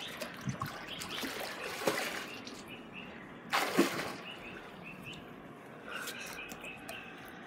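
Swimming pool water lapping and trickling, with small birds chirping now and then. A short, loud rush of noise comes about three and a half seconds in.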